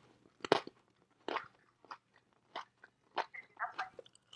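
Crisp fried fuchka shells being bitten and chewed close to the microphone: a string of separate crunches, roughly one every half second to second.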